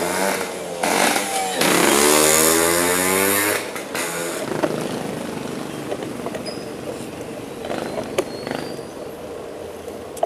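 A motorcycle engine passing close by, rising in pitch as it revs up and is loudest for about two seconds, then fading away into steady road noise.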